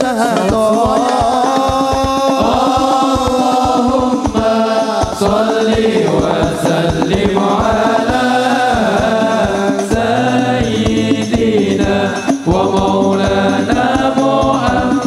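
A man chanting an Islamic devotional song (sholawat) through a microphone, holding long notes that bend and waver, over a steady drum beat.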